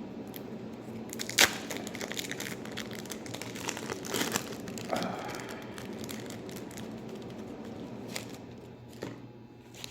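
Plastic food packaging being handled, crinkling and crackling with scattered sharp clicks. There is one loud snap about a second and a half in, over a steady low hum.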